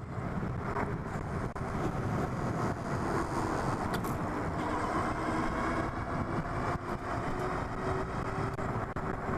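Riding noise from a Super73 S2 electric bike under way: steady wind and road rumble. A faint whine rises gently in pitch through the second half.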